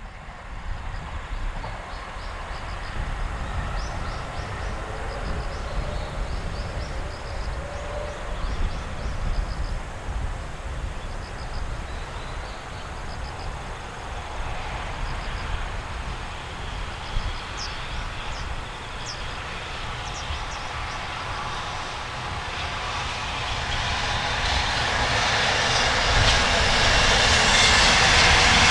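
Strong wind buffeting the microphone with a steady low rumble. Over the last several seconds a broad rushing noise swells steadily louder: a freight train approaching the crossing.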